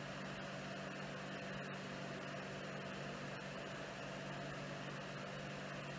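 Steady low electrical-type hum with an even hiss over it, unchanging throughout, as room tone; no distinct puff or exhale stands out.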